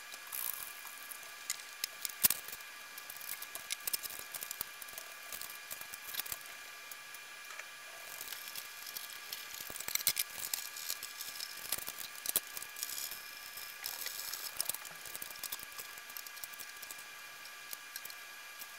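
Faint scattered clicks, taps and rattles of ceiling fan parts being handled during removal and hanging, over a faint steady whine.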